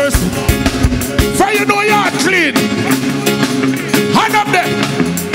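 Live reggae/dancehall band playing the rhythm, with drum kit and keyboards, and a couple of rising and falling wails over it. The deep bass drops away about a second and a half in.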